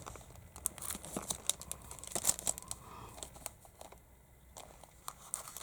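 Cellophane card sleeves crinkling and crackling as they are handled: a run of irregular sharp crackles, busiest in the first half and thinning out toward the end.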